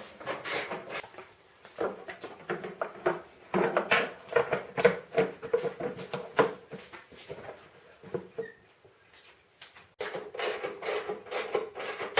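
Metal parts and hand tools being worked during snow blower reassembly: quick runs of clicks, knocks and scraping, with a quieter pause for a few seconds before a busy run of clicking near the end.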